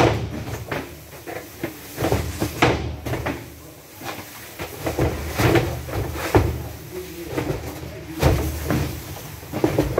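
Cartons of cup drinking water being unloaded from a truck and set down: a run of irregular thuds and knocks, several a second at times, with pauses between.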